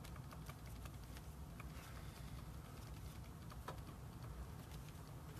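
Faint scattered light clicks and taps over a steady low hum.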